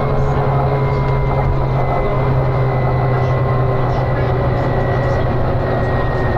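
Volvo B9TL bus's diesel engine running hard at speed, heard from inside the bus: a steady deep drone with a faint whine that slowly drops in pitch, over road and wind rush.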